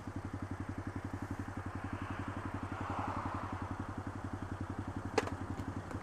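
Honda Grom's 125 cc single-cylinder engine idling, an even putter of about twelve beats a second. A single sharp click comes about five seconds in.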